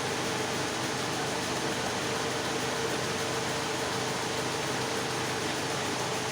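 Steady whir of running machinery with a constant hum, even and unchanging throughout.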